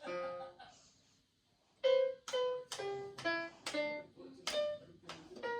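VTech KidiJamz toy keyboard playing single electronic notes: one note, a short pause, then a quick run of about eight notes going up and down in pitch as a simple tune.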